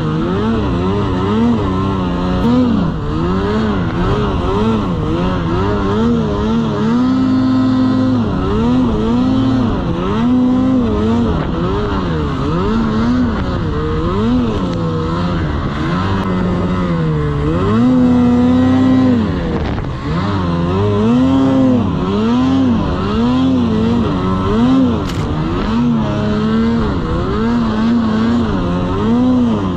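Snowmobile engine revving up and down again and again as the sled plows through deep powder snow, its pitch swinging every second or so.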